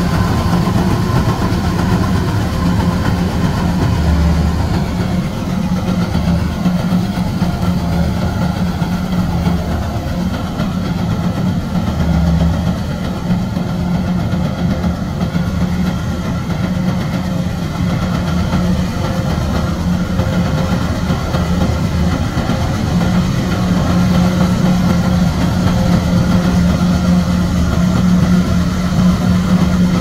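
Kubota DC-105X rice combine harvester's diesel engine running steadily with a low drone as the machine works through the crop. It grows a little fainter in the middle as the harvester moves away, then louder again toward the end.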